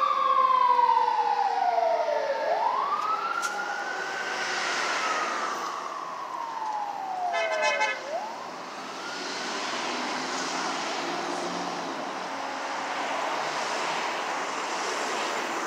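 A 2018 Pierce Arrow XT fire engine's siren wailing in two long, slow sweeps, its pitch falling and then rising again, with a short horn blast about seven seconds in. After that the siren fades away and leaves steady traffic and road noise.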